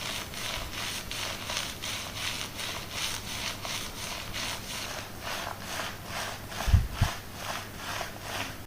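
Fingers scrubbing shampooed hair and scalp in a rhythmic rubbing scratch, about three strokes a second, with two dull low thumps a little past halfway.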